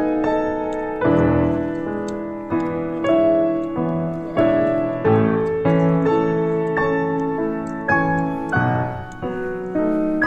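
Background piano music: a slow melody of single struck notes, each fading away before the next.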